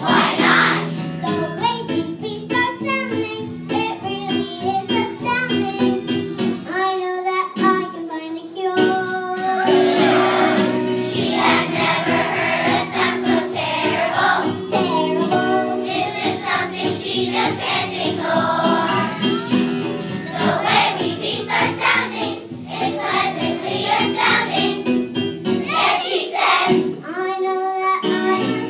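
A child singing a song with instrumental accompaniment.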